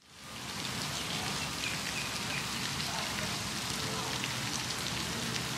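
Steady hiss of splashing water from a pond fountain, fading in at the start, with a few faint high chirps.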